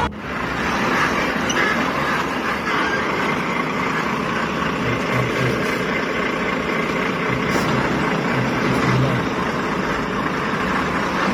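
Steady engine and road noise from a lorry, with no horn sounding.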